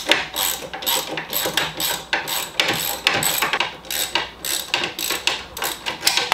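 Hand ratchet wrench clicking in short back-and-forth swings, about two or three strokes a second, turning a floorboard mounting bolt on a motorcycle.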